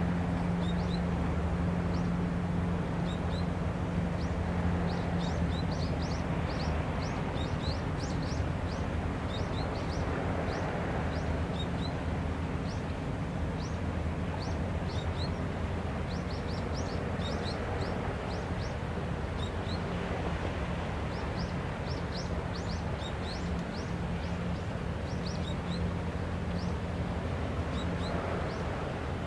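Outdoor ambience: small birds chirping over and over in short high notes, over a steady low engine hum and a constant rushing background noise.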